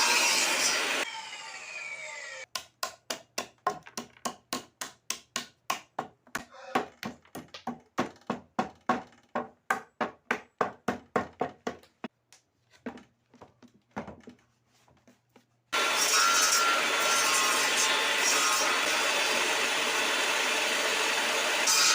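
Wood being worked in a workshop. A power tool runs and then winds down with falling tones. Then comes a steady run of hand-saw strokes on wood, about two and a half a second, thinning to a few single strokes. About three-quarters of the way through, a woodworking machine starts running steadily.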